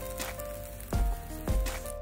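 Background music: held melodic notes struck on a steady, unhurried beat.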